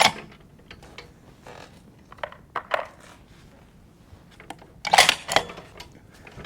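Sharp metallic clicks and clinks in three short clusters, the loudest about five seconds in: a rifle's bolt being worked and a round handled between shots.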